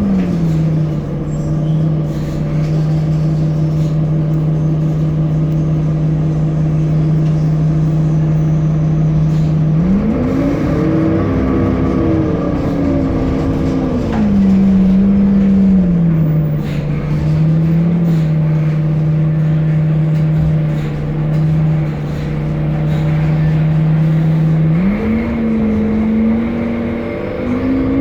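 Temsa Avenue LF city bus's DAF diesel engine and ZF Ecolife automatic drivetrain running under way. A steady pitched hum climbs in pitch about ten seconds in and falls back by about sixteen seconds, then climbs again near the end as the bus speeds up.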